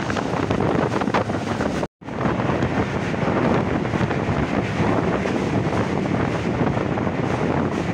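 Wind buffeting the microphone at the open window of a moving passenger train, over the train's steady running noise. The sound drops out suddenly for a moment about two seconds in.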